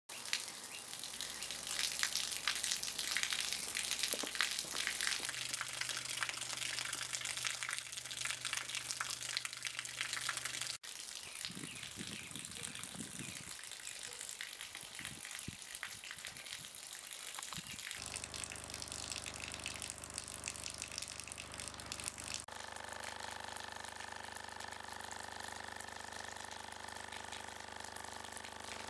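Water running and splashing in a steady stream, with steady test tones under it. The tones change pitch several times: a low tone about 5 seconds in, a deeper tone with overtones from about two-thirds of the way through, and higher tones added near the end.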